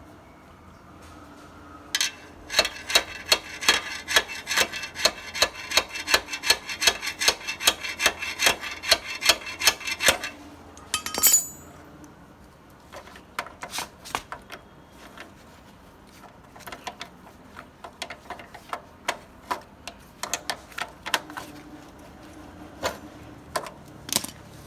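Metal hand-tool work on a motorcycle's rear wheel axle and nut. A long run of ringing metal clicks at about four to five a second lasts some eight seconds, typical of a ratchet or spanner working the nut. A brief high scrape follows, then lighter scattered metal taps.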